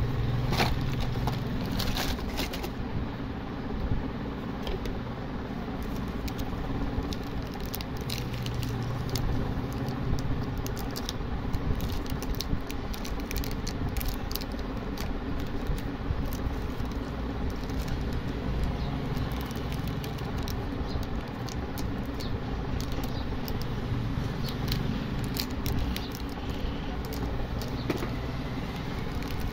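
Plastic chocolate-bar wrappers crinkling and clicking as the bars are handled, pulled from a cardboard box and set down one after another, over a steady low background rumble.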